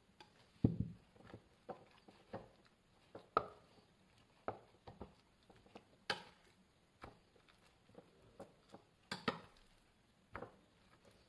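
Metal spoon scraping and clinking against a glass bowl while scooping thick, moist cottage-cheese mixture, with soft knocks as spoonfuls go into a gauze-lined mould. The short clicks and knocks come irregularly, a low knock about half a second in and a few sharper clinks standing out.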